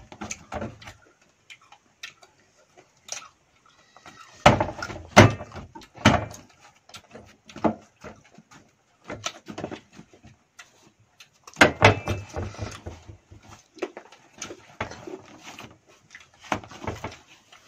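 Crisp, not-yet-ripe guavas being bitten and chewed, a run of irregular crunches, with louder clusters of biting about four seconds in and again about twelve seconds in.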